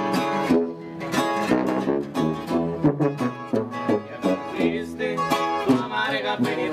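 Regional Mexican corrido played live: requinto guitar picking quick runs over a second acoustic guitar, with a tuba playing very close and partly covering the guitar.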